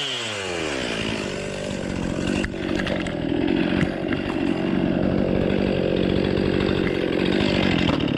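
Two-stroke chainsaw cutting into a tree. Its engine drops in pitch from full revs as the chain bites into the wood, then runs steadily under load with a rapid engine pulse.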